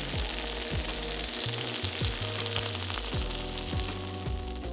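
Baked ziti sizzling with a steady fine crackle in its glass baking dish, fresh from a 400-degree oven, its melted mozzarella and tomato sauce still bubbling hot. Soft background music plays underneath.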